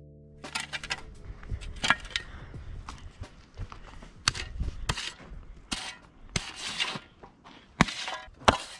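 Square-nosed metal shovel scraping and digging into loose dirt: an uneven run of sharp scrapes and knocks, a few a second.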